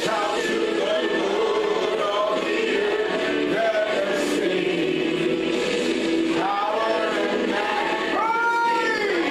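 Choir singing gospel worship music.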